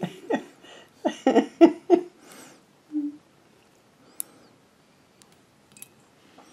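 A man's muttered, wordless voice and a short hum, then a few faint small clicks of metal hardware as a nut and washer are worked onto a bolt in a tight spot.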